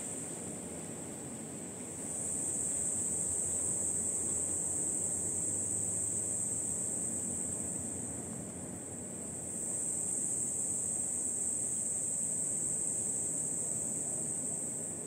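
Insects calling in a steady high-pitched drone, softer at first, swelling about two seconds in, easing off around eight seconds and swelling again near ten. A faint low outdoor rumble lies beneath.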